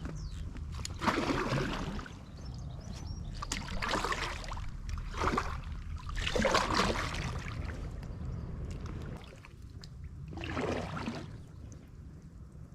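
Kayak paddle splashing through river water in about five separate strokes, a second or more apart, over a steady low rumble.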